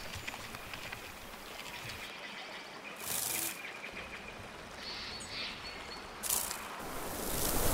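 Outdoor nature ambience with faint bird chirps, broken by short hissing rushes about three seconds in and again near the end.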